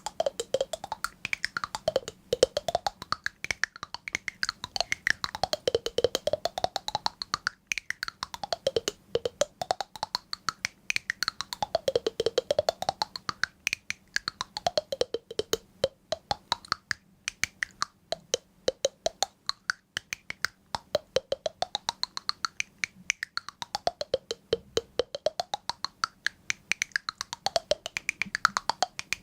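A fast, steady stream of small sharp clicks, whose tone sweeps down and back up about every three seconds.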